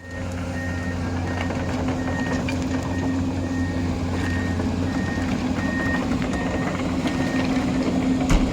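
Excavator engine running steadily with a high alarm beep repeating about three times every two seconds, and scattered knocks, one loud knock near the end.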